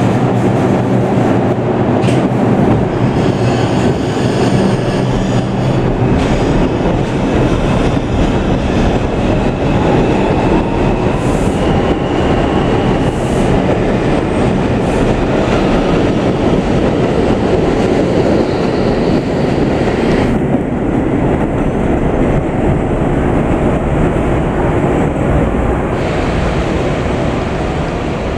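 R142 subway train pulling out of an elevated station and running past: a loud, steady rumble of wheels on the rails, easing slightly near the end as the last car moves away.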